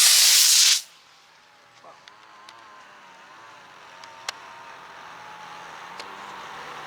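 Model rocket motor, a Quest motor, igniting and lifting off: a loud whooshing hiss that lasts under a second and cuts off suddenly.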